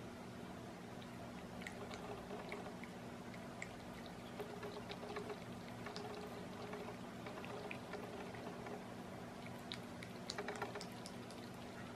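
A cat lapping water from a glass bowl: a run of small wet laps and drips, busier near the end, over a steady low hum.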